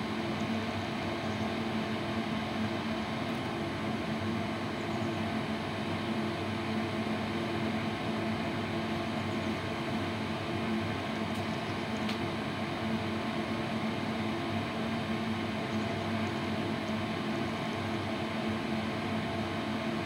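Danube DD16 electronic tumble dryer running, its drum turning a load of laundry: a steady motor-and-fan hum that does not change.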